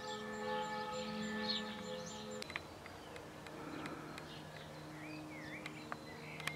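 Soft background music of sustained held tones that shift to a new chord about two and a half seconds in, with faint bird chirps.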